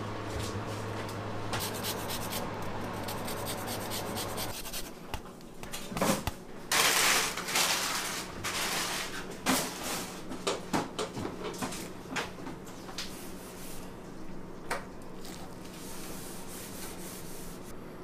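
Rubbing and handling noises in a kitchen, with scattered clicks and knocks and a few short, louder scraping bursts, over a steady low hum. The hum changes to a fainter, higher one about four and a half seconds in.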